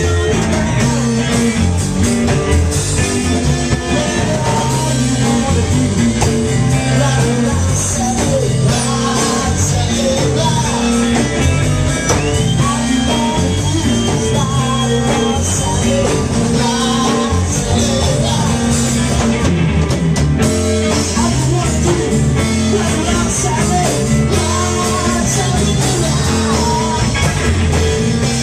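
Live rock band playing loud: electric guitar, bass guitar and drum kit, with a singer's voice over the top.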